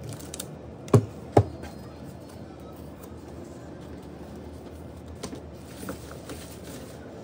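Two sharp knocks about half a second apart, about a second in, as a cardboard sheet and a photobook album are handled and set down on a tabletop, then a few lighter taps near the end.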